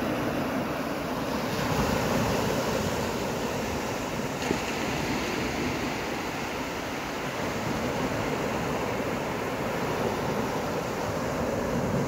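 Small surf breaking and washing up a sandy beach: a steady rush of water that swells a little as each wave comes in.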